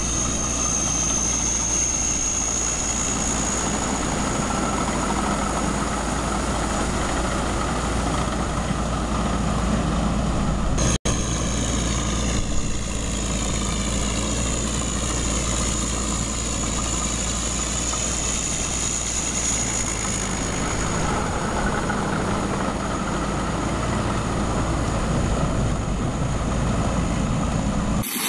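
Engine of a small tracked paddy tractor running steadily as it crawls through a wet rice field, with a thin high whine over it. The sound drops out for an instant about eleven seconds in.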